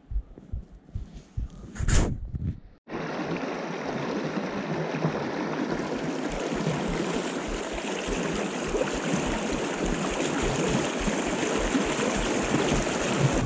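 Steady rush of the Kuzuryū River's fast main current, heard close to the water, starting abruptly about three seconds in. Before it, a few seconds of footsteps and knocks on the grassy bank, with one sharp knock about two seconds in.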